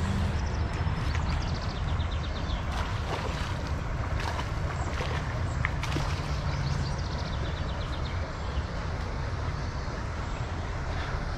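Steady low wind rumble on the microphone while a hooked largemouth bass is reeled in to the bank, with scattered small clicks and splashes and faint high chirping.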